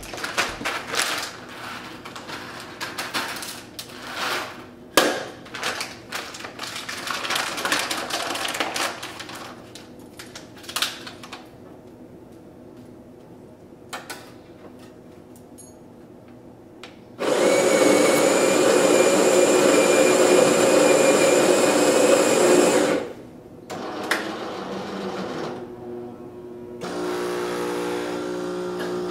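Capresso C1000 automatic espresso machine starting a brew cycle. Its built-in grinder whirs loudly and steadily for about five seconds. The brew unit then runs briefly, and the water pump starts a steady buzzing hum near the end. Before that come irregular clatter and a single click as a glass mug is set on the drip tray.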